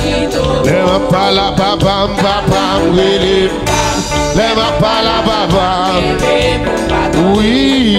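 Haitian gospel praise song playing: a band with a steady beat and a melody line that bends and wavers in pitch.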